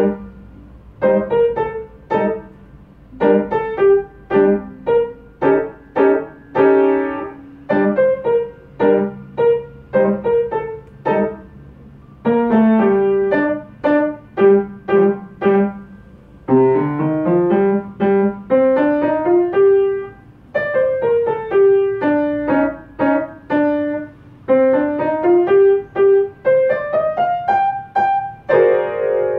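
Upright piano playing solo, in short bursts of notes separated by brief pauses. From about halfway through it moves into rising runs of notes, and near the end it lands on a held chord.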